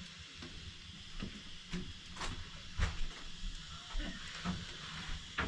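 Hot wood-burning stove with bread toasting on its iron top: a faint steady hiss with scattered light ticks and clicks.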